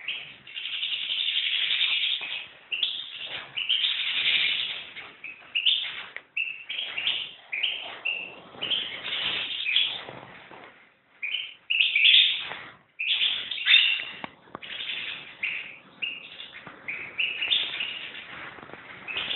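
European goldfinch singing: fast twittering song phrases, one after another, broken by brief pauses.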